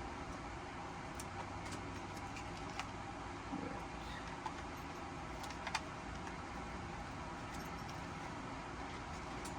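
Light clicks and taps of small plastic parts being handled, a few times, over a steady low hum of background noise.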